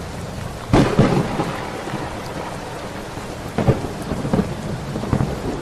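Steady rain with thunder cracking several times, the loudest crack under a second in.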